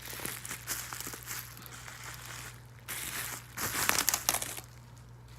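Packaging crinkling and rustling as an item is pulled out of it by hand, loudest in a flurry of crackles about three to four and a half seconds in, then settling.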